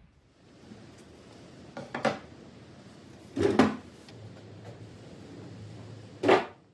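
Wooden knocks and bumps as a pine table is handled and shifted, with three louder knocks about two, three and a half and six seconds in.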